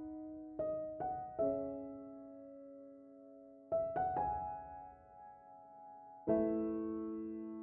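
Soft background piano music: a few single notes in the first second and a half, two more about four seconds in, and a full chord near the end, each left to ring and fade.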